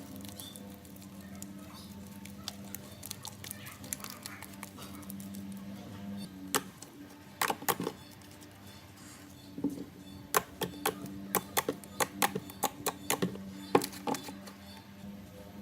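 Slime being worked by hand, giving a run of crisp clicks and small pops, sparse at first and then quick and loud through the second half, over a steady low hum.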